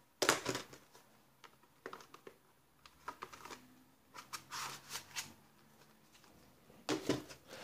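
Plastic Blu-ray cases and a cardboard slipcover being handled: irregular rustles, light scrapes and small clicks as a case is slid into its slipcover.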